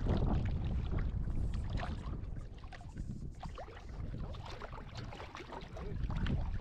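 Wind rumbling on the microphone over water sloshing and splashing around legs wading in shallow sea water, somewhat quieter in the middle.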